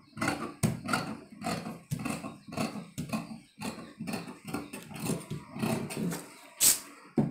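Tailor's shears cutting through folded dress fabric on a cutting table: a steady run of short crunching snips, about three a second, with one sharper click near the end.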